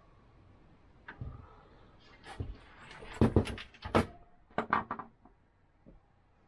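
Clicks and knocks of computer parts being handled and fitted, a few scattered at first, then a dense cluster of sharp knocks about three to four seconds in, dying away by about five seconds.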